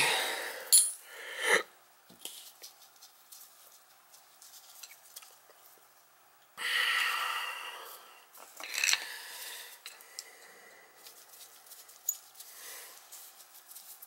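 Small clicks and rustles of gloved hands fitting the switch rod and wiring onto a Zoeller sump pump, with a sharp snap just under a second in. Several short breathy rushes of noise stand out above the handling, the longest and loudest about seven seconds in.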